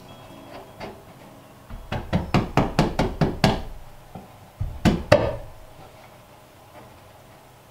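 Hammer blows on wooden wall framing: a quick run of about eight strikes, roughly four a second, then two more strikes a little over a second later.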